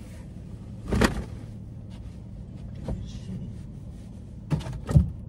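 Steady low hum inside a car cabin, broken by short knocks and bumps: a loud one about a second in, a smaller one a couple of seconds later, and two more close together near the end.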